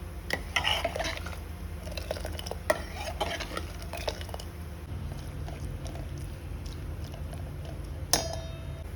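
A metal spoon stirring in a cooking pot, scraping and clinking against its sides in a burst of strokes, then one sharp ringing clink near the end. A steady low hum runs underneath.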